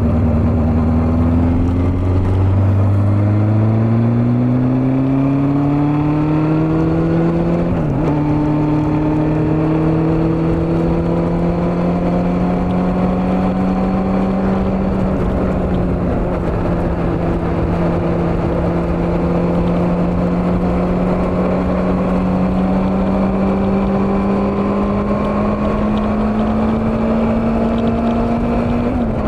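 Honda CB400 motorcycle engine under way, climbing in pitch as it accelerates, dropping sharply at a gear change about eight seconds in, then pulling with a slowly rising pitch to another shift near the end. A steady rush of wind noise runs underneath.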